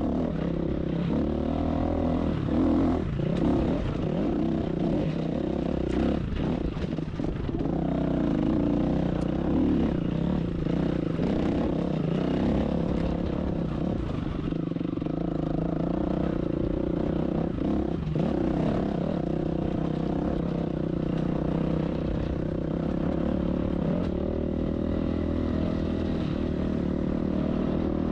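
Dirt bike engine running on the trail, its revs rising and falling again and again, with scattered knocks and clatter.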